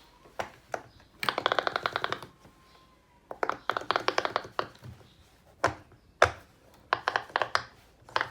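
Keys of a keyboard-style fidget toy being pressed. A few single clicks, then two quick runs of rapid clicking, then more clicks spaced out singly and in short groups.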